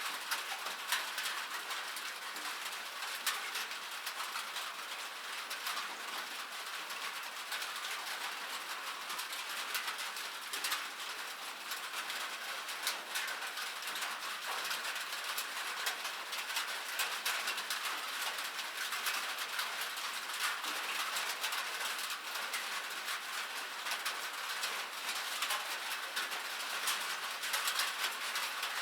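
Rain falling on a metal surface: a dense, steady patter of drops, each landing as a small sharp tick over a constant hiss.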